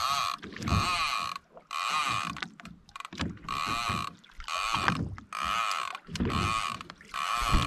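Fishing reel being wound in by hand, a short whirr of the gears with each turn of the handle, repeating steadily a little over once a second.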